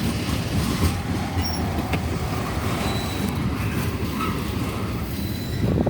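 A train passing with a steady low rumble.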